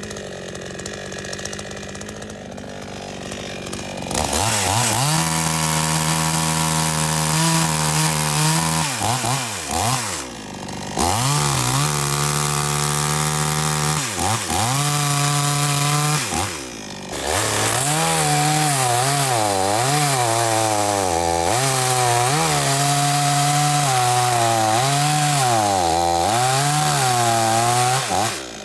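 Two-stroke chainsaw engine running at a low idle, then revved hard about four seconds in and held at high revs, with the pitch sagging and recovering again and again. It is bogging after sitting unused for a long time, a sign the carburetor needs adjusting.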